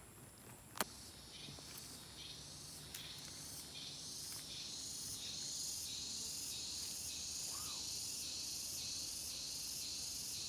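A chorus of shrilling insects, a high steady drone pulsing about twice a second, growing louder over the first few seconds and then holding steady. A single sharp click a little under a second in.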